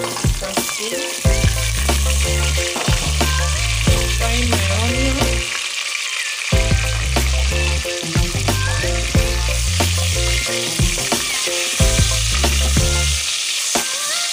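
Sliced onions sizzling as they fry in hot oil in a large pot, stirred with a wooden spoon, over background music. The sizzle starts as the onions go in.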